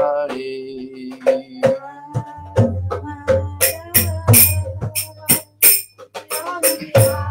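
Devotional kirtan music: a male voice holds the last sung word 'Bihari', then a harmonium-like reed instrument plays a droning melody. A rattling hand percussion keeps a steady beat of about three strokes a second, growing louder from about halfway through.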